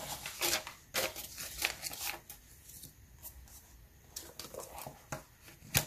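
Paper banknotes and a clear plastic binder envelope being handled: rustling and crinkling, busiest in the first couple of seconds, then sparser, with a single sharp click near the end.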